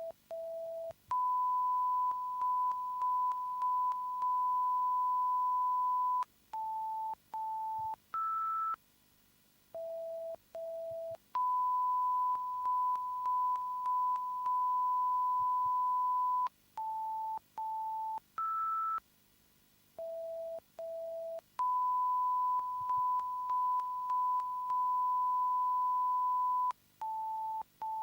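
Broadcast line-up test tones of a 5.1 surround sound check: a pattern of pure beeps repeats about every ten seconds. Each round has two short lower beeps, a long steady tone with a few brief breaks, two short beeps a little higher, one higher beep, then a short silence.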